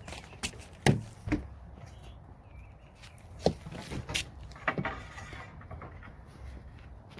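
A handful of scattered short knocks and clicks, the loudest about a second in and around three and a half to five seconds in, over a low steady background hum.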